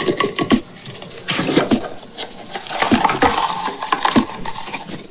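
Plastic surprise nesting eggs being handled and pried open: a run of sharp clicks, knocks and clatter of hard plastic shells.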